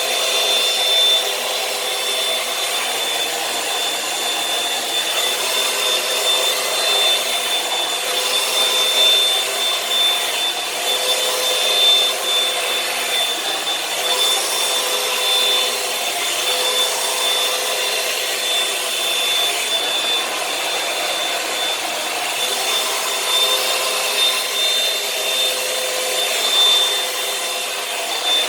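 Revlon One-Step Hair Dryer and Volumizer running steadily: a rush of air with a high, steady motor whine, swelling slightly in loudness now and then.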